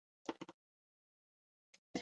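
Near silence broken by a few brief, faint clicks about a quarter of a second in, and one short click just before the end.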